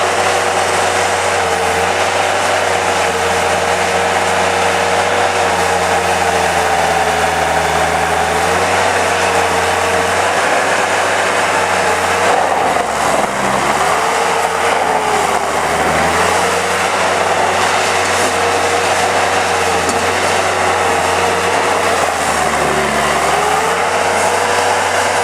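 Bobcat S150 skid-steer loader's diesel engine running steadily with hydraulic whine, its pitch dipping briefly twice, about halfway through and near the end, as the machine is worked.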